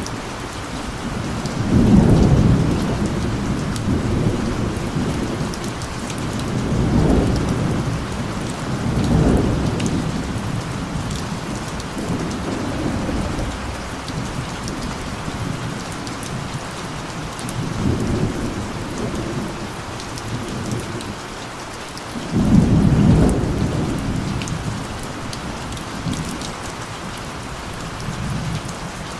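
Steady rain falling, with several low rolls of thunder rumbling through it. The loudest roll comes about two-thirds of the way through.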